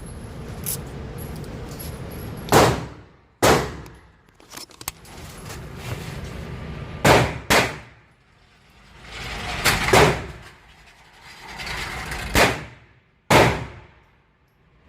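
A series of about seven loud, sharp bangs at irregular intervals, each ringing off over about half a second.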